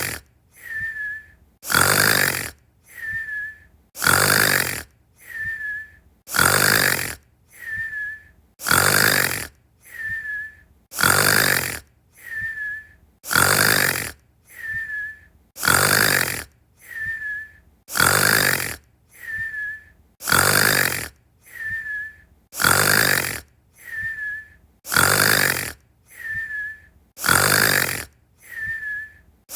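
A person snoring in an even, repeating cycle about every two and a half seconds: a loud snore, then a short, quieter whistle that dips slightly in pitch, the classic snore-and-whistle.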